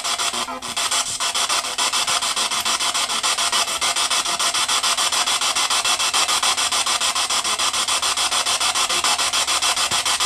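Spirit box radio sweeping rapidly through stations: a steady hiss of static chopped into a fast, even pulse several times a second.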